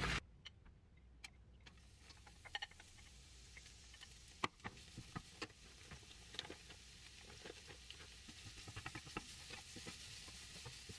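Quiet kitchen handling sounds while cooking an egg sheet: scattered light clicks and taps, with a faint hiss that grows slightly toward the end.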